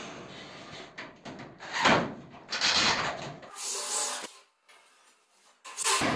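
Scraping and rubbing noises from work on the galvanized metal ceiling-framing channels. Several short bursts come, the loudest about two seconds in, then a gap of near silence before a last burst near the end.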